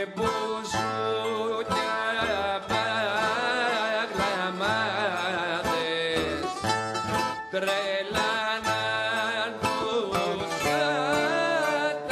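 Rebetiko song played live: a man sings over plucked bouzouki, baglama and guitar, with a steady strummed rhythm underneath.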